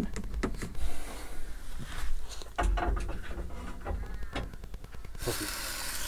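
Table knife scraping spread from a plastic tub and spreading it on bread rolls: small irregular scrapes and taps. About five seconds in this gives way to the steady sizzle of vegetarian bacon slices frying in a hot pan.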